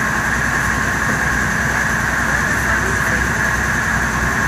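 Steady drone of a river passenger boat's engine under way, running evenly without change.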